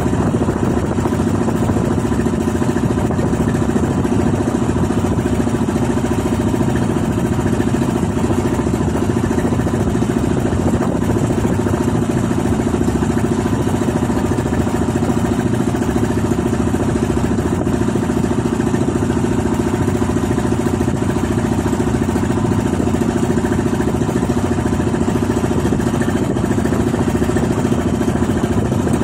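Engine of a motorized outrigger boat running steadily as the boat travels, an even drone that does not change.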